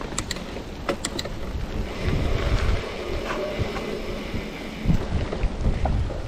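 Mountain bike riding over a leaf-covered dirt trail: wind buffeting the microphone over tyre and trail rumble. There are a few sharp clicks and rattles from the bike, several of them in the first second or so.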